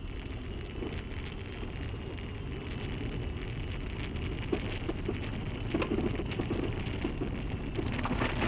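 A car on the move, heard from inside: a steady low rumble of engine and road noise, with a few short taps and knocks in the middle.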